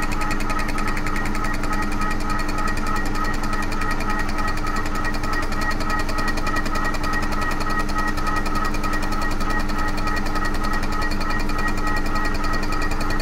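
Head-skimming machine taking a cutting pass across the aluminium face of a Vauxhall cylinder head: a steady machine hum of the spinning cutter with a fast, even chatter.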